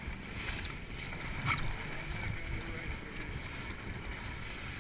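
Wind buffeting the microphone over water rushing and splashing past the hull of a wooden log canoe sailing hard, with a brief knock about a second and a half in.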